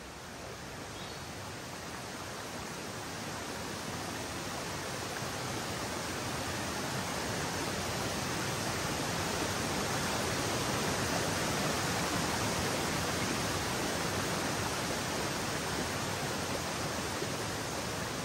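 A rain-swollen mountain stream rushing steadily. It grows louder over the first ten seconds or so, then eases off slightly.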